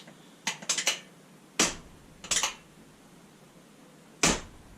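A handful of sharp taps and knocks on the newly fitted door insert panel of a UTV. There is a quick cluster of light clicks, then heavier single knocks about a second and a half in and near the end.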